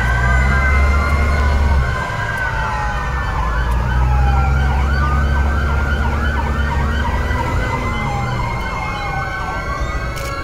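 Several fire engine sirens sounding at once, slow wails overlapping with quicker yelping sweeps in the middle. A deep steady drone runs underneath, drops out about two seconds in and comes back for a few seconds.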